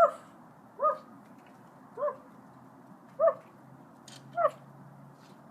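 A dog barking at a steady pace, about one short bark every second or so, five times.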